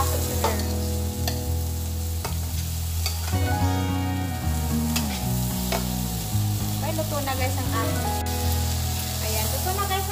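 Shrimp frying and sizzling in a metal frying pan while being stirred and tossed with a slotted metal spatula, which scrapes the pan and knocks against it in sharp clicks every second or so.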